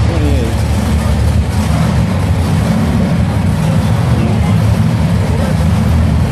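Several monster truck engines running together with a steady, deep, loud note.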